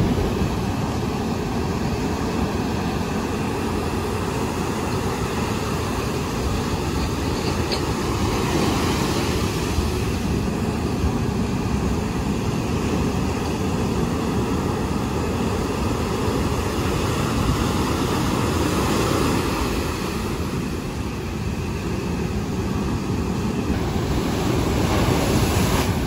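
Heavy, rough surf breaking and washing over the shore in a continuous rush of noise that swells a little near the end.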